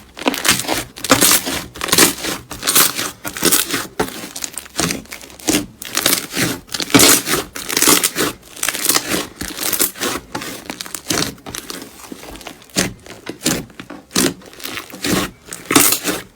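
Slime being squeezed and pressed by hand, giving a run of irregular crackling bursts, roughly one or two a second, with a quieter stretch a little after the middle.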